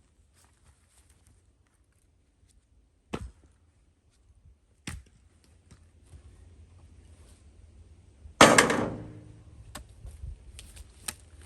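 Two sharp knocks a couple of seconds apart, then one loud thunk with a short ringing tail about eight seconds in, followed by a few lighter clicks.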